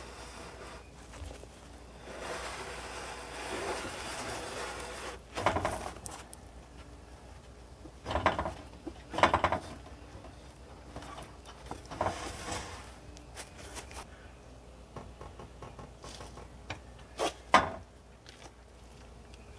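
Heavy wooden beams being slid and shifted against stacked pallets and the trailer: scraping and rubbing, broken by a series of sharp wooden knocks and thuds.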